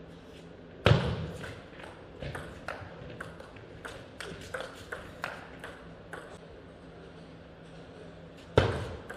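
Table tennis rally: the plastic ball clicking off bats and table about two or three times a second, ending around six seconds in. A loud thump comes about a second in, and another near the end.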